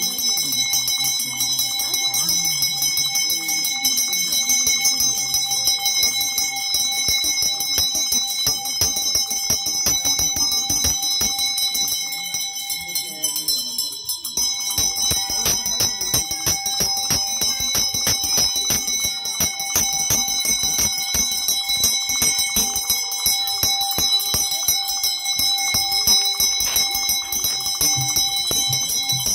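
Temple bells ringing on and on, with a rapid run of clapper strikes over steady ringing tones. Low voices chant under the ringing in the first several seconds. The ringing stops briefly near the middle, then picks up again.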